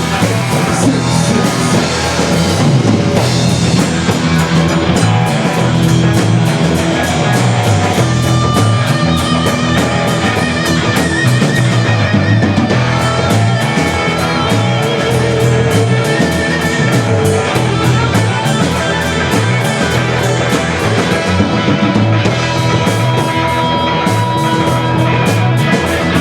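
Loud rock music played by a band: electric guitar over a drum kit with a steady beat, without singing.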